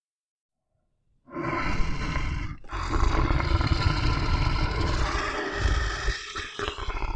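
Bear growling and roaring: a deep, rough growl begins a little over a second in after silence and runs on, broken by two short pauses.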